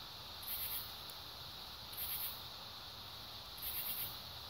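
Night insects chirping high-pitched in short trilled bursts, one about every second and a half to two seconds.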